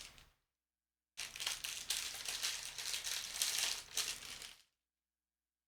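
Packing material rustling and crinkling as a box is unpacked by hand: a brief burst, then a longer stretch of about three seconds that cuts off abruptly.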